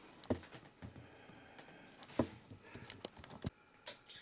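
Faint, scattered clicks and soft knocks from hands handling the cat and instruments, a second or so apart. Right at the end a steady high hiss starts.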